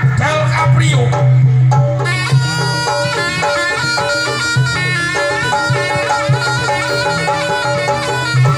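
Javanese jaranan music: a shrill reed trumpet (slompret) plays a wavering melody over drums and a steady low drone, and it grows louder and brighter about two seconds in.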